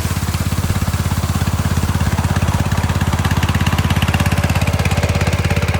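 An engine running steadily at idle, with an even, rapid low pulsing.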